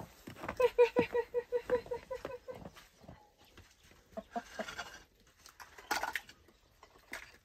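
Chickens clucking: a quick run of about a dozen even clucks, about five a second, then a few lower clucks about four seconds in and a short louder call near six seconds.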